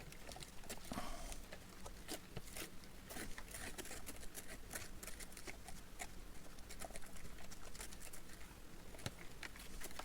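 Homemade citric-acid and washing-powder rust-remover solution in its container, giving faint irregular crackling and ticking, several small clicks a second.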